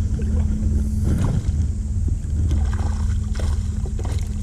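Flowing river water and wind rumbling on the microphone, with a faint steady hum and a few short clicks.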